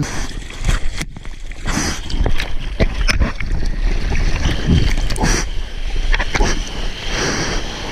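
Ocean surf breaking and washing on a beach, with gusts of wind buffeting the microphone.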